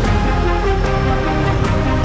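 Music with a steady, heavy low end and sustained electronic chords.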